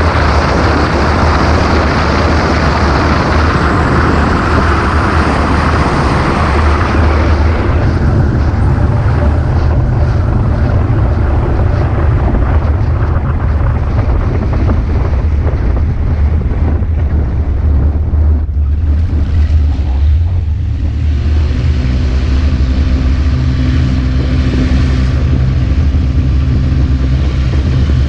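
Wind buffeting the microphone on an ultralight trike's wing during its approach and landing roll on grass. The rushing eases as the trike slows, and a faint steady hum comes in during the last third.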